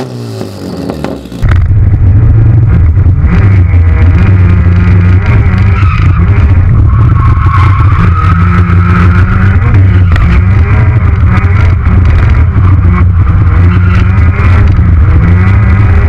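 Turbocharged Mazda MX-5 B6 four-cylinder engine in an FC3S RX-7 being driven hard while drifting, heard from inside the cabin: very loud, with the revs rising and falling again and again. For the first second and a half the engine is heard quieter from outside, revs falling, before the sound jumps to the in-cabin level.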